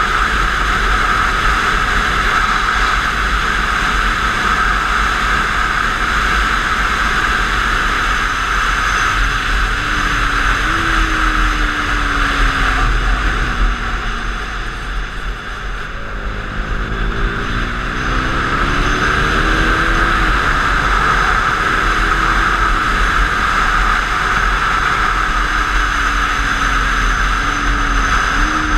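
Wind rushing loudly over a GoPro on a KTM 390 motorcycle at track speed, over the note of its single-cylinder engine. The engine pitch falls and the sound dips around the middle as the bike slows for a corner, then the engine rises again as it accelerates, with a few more rises and drops near the end.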